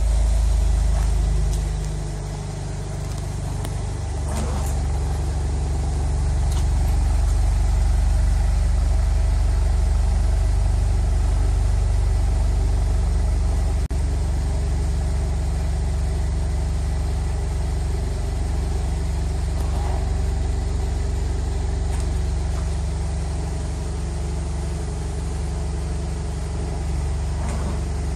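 Volkswagen Golf R's turbocharged 2.0-litre four-cylinder engine idling steadily after being started, with a deep, even rumble that dips briefly about two seconds in.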